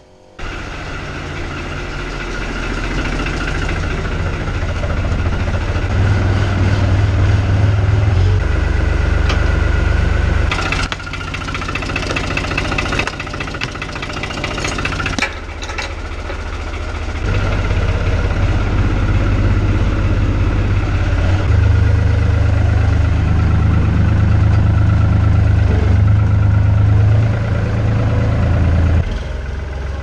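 A tractor's diesel engine runs throughout, its loudness swelling and easing a few times.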